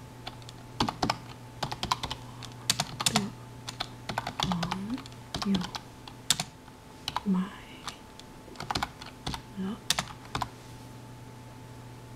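Typing on a computer keyboard in irregular runs of keystrokes. The typing stops about ten and a half seconds in.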